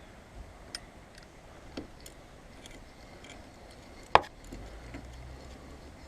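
Scattered small metallic clicks and taps from tools and brake caliper parts being handled, with one loud sharp clack about four seconds in.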